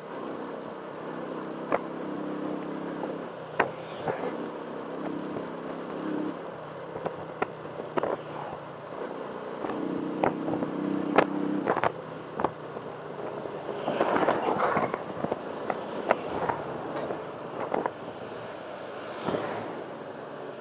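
A motor vehicle's engine running over a noisy background, with a steady hum that comes and goes, and many sharp clicks and knocks scattered throughout.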